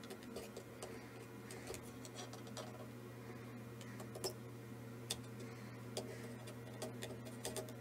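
Faint, irregular small clicks and ticks of soldering-iron work on a circuit board's component pins, over a steady low hum.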